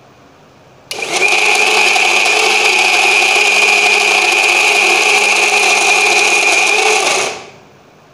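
Preethi Crown electric mixer grinder grinding soaked rice with jaggery syrup into batter. It switches on suddenly about a second in, runs at a steady high whine for about six seconds, then winds down as it is switched off.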